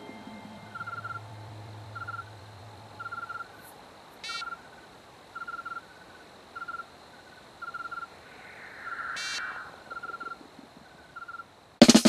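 Short high chirps repeating in small clusters about once a second, frog-like nature ambience, with two sharper single calls about four and nine seconds in. Near the end a drum kit comes in with a rapid run of loud hits.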